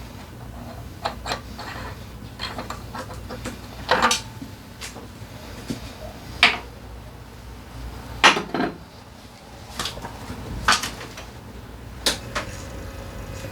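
Metal hand tools and drivetrain parts of a scooter clinking and clanking as they are handled and set down: a dozen or so sharp metallic knocks at irregular intervals, the loudest about four, six and eight seconds in.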